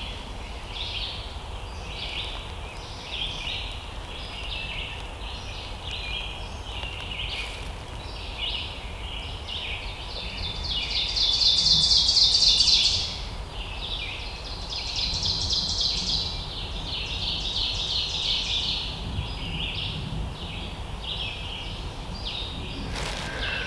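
Songbirds singing: a steady run of short, high chirps from several birds, with two louder, rapid trilled songs near the middle, over a low background rumble.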